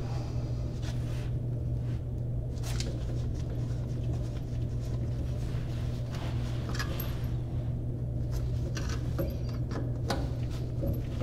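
A few light clicks and scrapes of a screwdriver working the set screws on a single-hole kitchen faucet's mounting clip under the countertop, several of them near the end, over a steady low hum.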